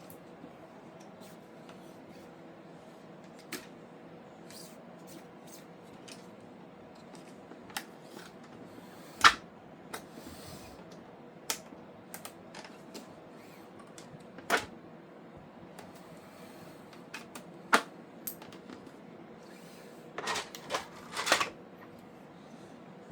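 Scattered sharp clicks and clacks of hard plastic parts being handled and worked, over a steady low hum. There are a few louder knocks, then a quick run of clacks near the end.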